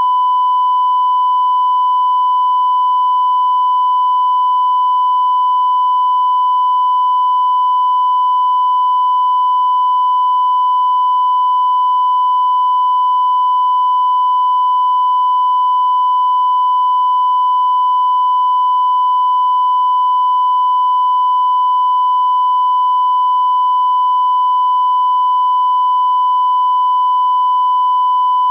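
A steady, unchanging electronic test tone of about 1 kHz, a single pure pitch with faint overtones at about three and five times that pitch, held without a break.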